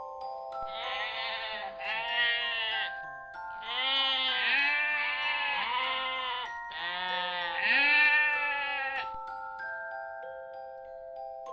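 Bleating farm animal: a run of wavering bleats in three bouts, stopping about nine seconds in, over gentle glockenspiel background music.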